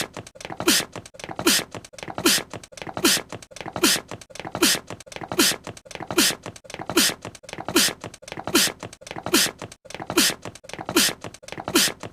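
A small, cute anime-style sneeze, looped over and over at about one every 0.8 seconds, some fifteen times. Each is a brief falling voiced catch followed by a sharp hissing 'choo' burst.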